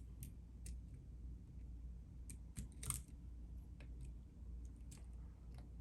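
Faint, scattered clicks and scratches of a lock pick and tension wrench working the pins of a challenge lock held in a deep false set, with one louder click about three seconds in.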